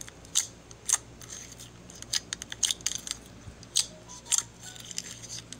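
Glittery blue slime in a round tub being pressed and squished with the fingers, giving irregular sharp little pops and clicks, a few a second.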